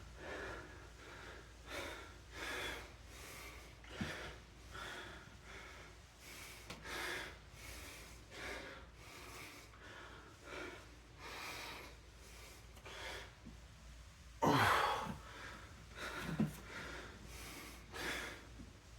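A man breathing hard through an exercise set, with short, forceful exhales about once every second and a louder gasping breath about fourteen seconds in. A single sharp click sounds about four seconds in.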